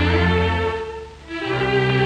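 Background music: a melody of long held notes over low bass notes, with a short drop between phrases just past the middle.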